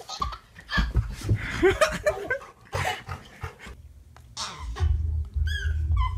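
A dog's noises as a baby hugs and climbs on it, with short pitched calls among scuffling. About two-thirds in a low rumble starts and becomes the loudest sound.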